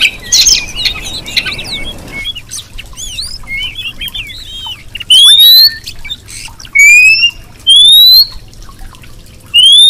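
Female Oriental magpie-robin calls: dense chirping for about the first two seconds, then scattered short chirps, and from about five seconds in four loud rising whistles, each about half a second long.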